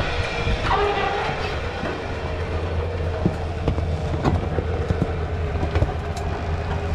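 MK1 VW Golf Cabriolet being pulled slowly up steel loading ramps onto a car trailer: a steady low hum under scattered clicks and creaks from the wheels and ramps, with a short squeak about a second in.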